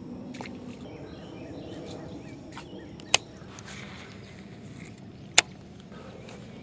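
Outdoor lakeside ambience with faint bird chirps and a steady low background, broken by two sharp clicks about two seconds apart.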